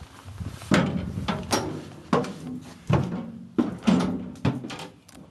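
Footsteps on the steel steps and floor plate of a railroad car, about seven heavy footfalls, each a clank that rings briefly in the metal.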